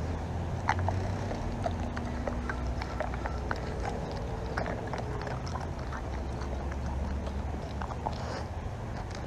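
Dog eating small treats, scattered sharp clicks and crunches of chewing over a steady low outdoor rumble.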